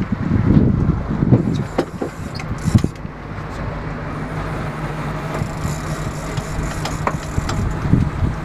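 Fishing boat's engine droning steadily, with uneven gusty noise over the first few seconds and a few sharp clicks scattered through.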